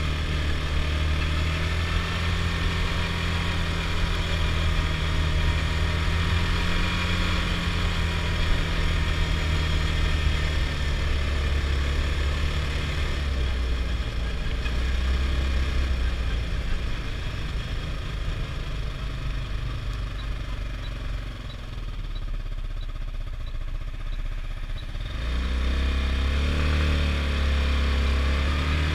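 Adly Hurricane 320 quad's engine running under way, steady for the first dozen seconds. It then drops to a lower, quieter note for several seconds and picks up again with a rising rev about 25 seconds in.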